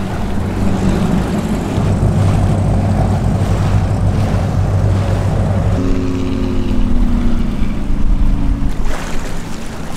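Water rushing and splashing past an inflatable dinghy running at speed, with wind buffeting the microphone. The dinghy's electric outboard adds no audible motor noise. From about six seconds in, a passing motorboat's engine adds a steady drone that falls slightly in pitch and stops near nine seconds.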